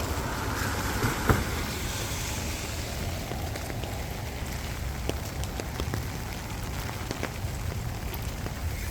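Rain falling steadily, with scattered drops ticking sharply and one louder drip about a second in, over a low rumble.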